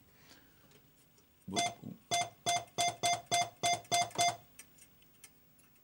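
Electronic beeps from a Joker Poker coin-operated poker machine: a run of about nine short, identical tones, a little over three a second, starting about one and a half seconds in and stopping shortly after the middle.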